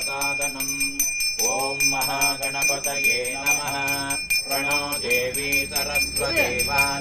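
Puja hand bell ringing rapidly and without a break, its steady metallic ring over a wavering melody.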